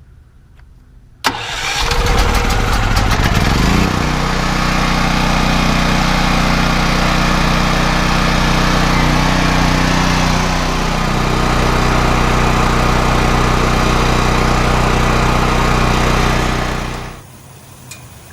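Westinghouse WGen9500DF portable generator's single-cylinder gasoline engine electric-started: it catches about a second in and speeds up over a couple of seconds to its governed speed. It then runs steadily and loudly on gasoline and stops abruptly near the end.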